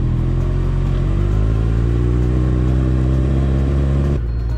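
Kawasaki Ninja 1000's inline-four engine running at low road speed, its pitch rising slowly as the bike gently accelerates. The sound drops off abruptly near the end.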